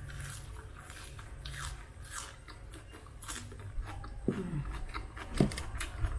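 Close-up chewing and crunching of raw tespong leaves and stems, with many small wet mouth clicks. Two brief falling squeaky notes come about four and five seconds in.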